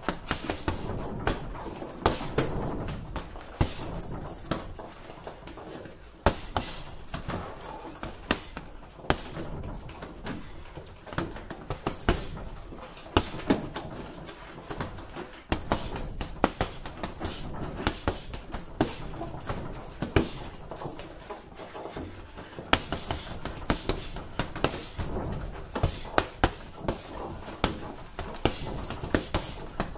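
Gloved punches landing on a hanging heavy bag: sharp thuds in irregular flurries, sometimes several a second.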